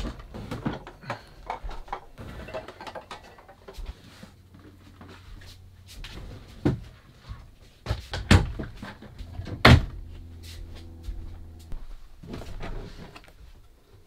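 Wooden overhead cabinet doors in an RV opening and closing while the cupboards are emptied: a run of scattered knocks and clatters, the sharpest three a little past the middle.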